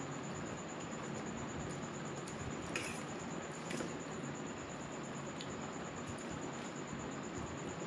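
Steady whooshing hum of a running ceiling fan, with two small clicks of eating a little under three and about four seconds in.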